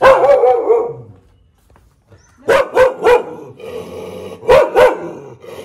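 Dog barking: one long, wavering bark at the start, then three quick sharp barks about halfway through and two more near the end.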